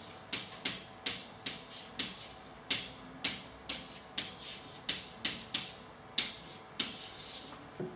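Chalk writing on a blackboard: a run of short, irregular scratchy strokes and taps, two or three a second, as a formula is written out.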